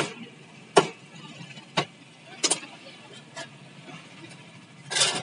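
Butcher's cleaver chopping through a pig's head on a round wooden chopping block: about six sharp, heavy chops roughly a second apart, the last one longer and loud.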